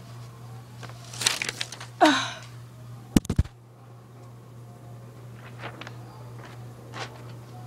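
Paper puppets and the recording device being handled: crackly paper rustling about a second in, a short noisy sound with a falling squeak around two seconds, then a quick cluster of sharp knocks on the microphone just after three seconds. A steady low hum runs underneath.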